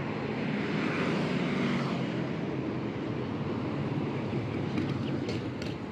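Road traffic passing: cars, buses and motorcycles, with motorcycle engines running, swelling about a second in.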